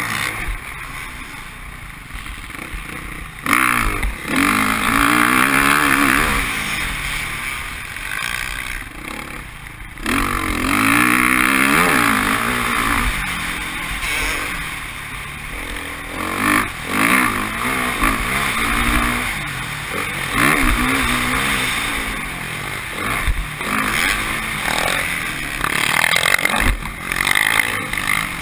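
Motocross bike engine heard from a camera mounted on the bike, revving up and falling back again and again as the rider accelerates and shuts off around a dirt track. It surges loudly several times.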